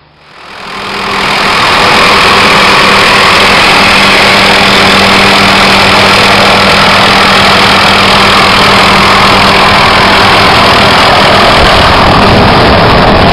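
Light turbine helicopter of the Hughes 500 type hovering close overhead: loud, steady rotor and engine noise with a constant hum, fading up over the first two seconds.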